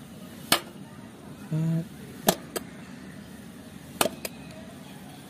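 Kitchen knife slicing through kinetic sand, the blade tapping sharply against the table at the end of each cut, five taps in all, some in quick pairs. A short low hum sounds about a second and a half in.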